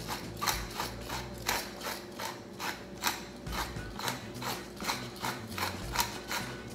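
Glass pepper mill being twisted by hand, grinding peppercorns: a steady run of ratcheting grinding clicks, about three a second.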